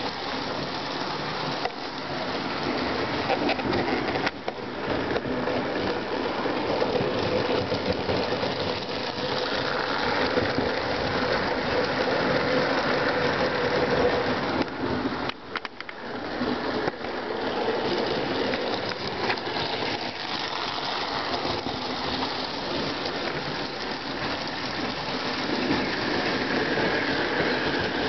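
Lionel 221 O-gauge toy steam locomotive and passenger cars running on three-rail tubular track: a steady whir of the electric motor and gears with the wheels rattling over the rails. The sound drops briefly about halfway through.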